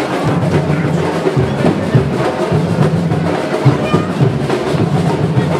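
Music dominated by drums and percussion, with a steady stream of drum strokes.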